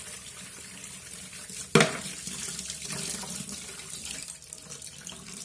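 Tap water running into a metal sink and splashing over a baby's milk bottle and sponge being rinsed under the stream, with one sharp knock a little under two seconds in.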